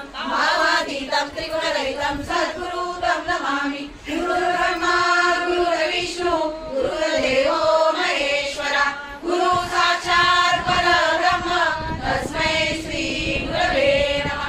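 A group of women's and children's voices chanting a devotional chant together in unison, in held phrases with brief pauses between them.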